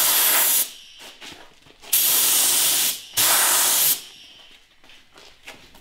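Compressed-air gravity-feed paint spray gun spraying in three short bursts of hiss, each under a second and cut off sharply as the trigger is released.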